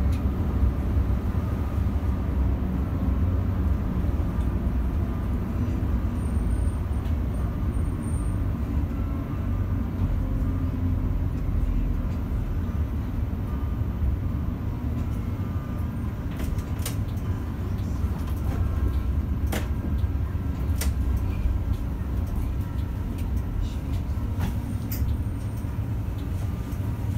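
Solaris Urbino 15 city bus under way, heard from inside the cabin: a steady low engine and road rumble. A few sharp clicks or rattles come in the second half.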